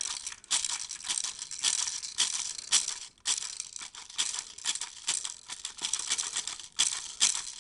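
About 50 plastic airsoft BBs pouring from a speed loader into the hopper of a Crosman Stinger R71 airsoft rifle: a dense, continuous rattle of small pellets.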